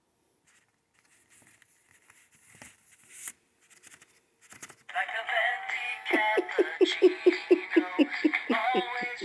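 Paper card rustling faintly as its fold-out panels are handled, then about five seconds in a musical greeting card suddenly starts playing a recorded song with singing over a steady beat.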